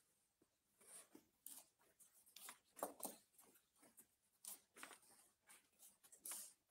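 Near silence: room tone with faint, scattered rustles and small clicks at irregular moments.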